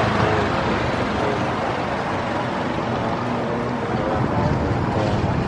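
Busy street-market background: a steady hum of traffic and engines with indistinct voices mixed in.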